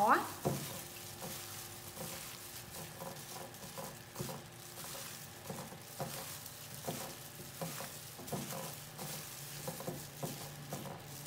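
A plastic-gloved hand tossing and squeezing sliced cucumber, carrot and onion in a glass bowl: soft, irregular crackling and squishing of wet vegetables and crinkling of the glove, with an occasional small click.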